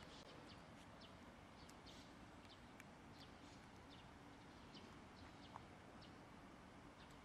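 Birds chirping faintly, short high chirps every second or so, over a faint steady low hum.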